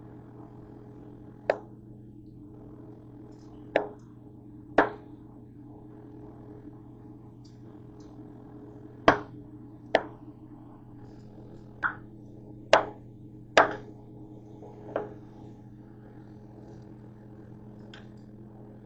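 About ten sharp knocks and clicks of kitchen utensils and containers being handled, at uneven intervals, over a steady low hum.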